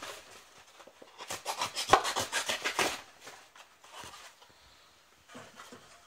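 A moulded paper-pulp egg tray being cut, with rapid rasping, sawing strokes through the cardboard. The strokes are loudest in a burst around the middle, with one sharp snap, then fade to fainter scraping.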